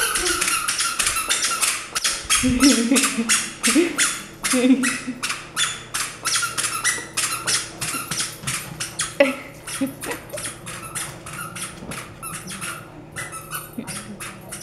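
A toddler's squeaker shoes squeaking with every quick step, about three or four short, high squeaks a second, thinning out in the second half.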